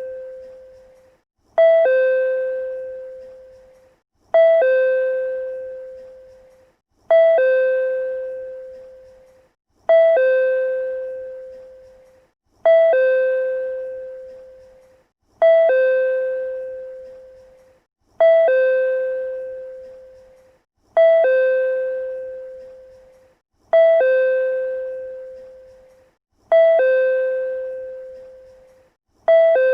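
PRC-type electronic chime sounding a two-note ding-dong over and over, about once every 2.7 seconds: a short higher note, then a lower note that rings out and fades.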